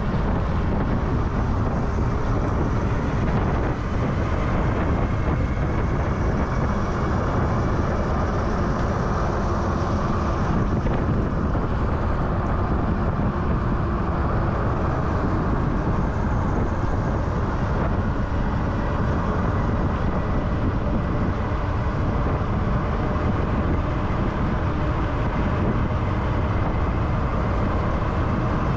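Steady wind rush and road noise on an action camera's microphone while riding an electric bike, with a faint thin whine running underneath.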